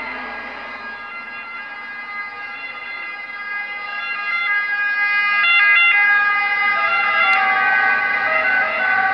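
Italian ambulance siren wailing in steady alternating tones, growing louder about halfway through as the ambulance approaches on an emergency run.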